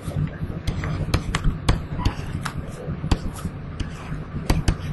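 Irregular sharp clicks and knocks, a few to several a second, over a steady low hum, with faint voices in the background.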